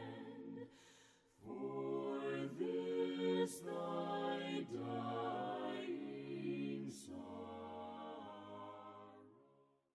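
A cappella choir singing a slow hymn in long held chords, with a brief pause about a second in, fading out near the end.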